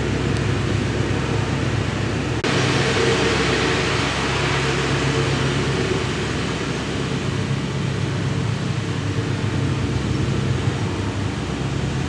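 Steady city background noise: an even low hum of distant traffic with a broad hiss and no distinct events. The noise shifts abruptly about two and a half seconds in.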